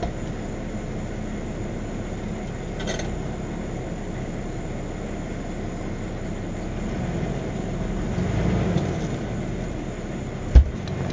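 A vehicle engine runs steadily, swelling louder for a couple of seconds around eight seconds in. Near the end comes a single sharp, heavy thud as the tire's bead breaks loose from the wheel rim under the pry bar.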